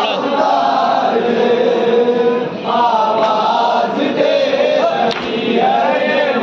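A group of men chanting a noha, a Shia mourning lament, loudly together, the melody rising and falling line by line, with a short pause about two and a half seconds in.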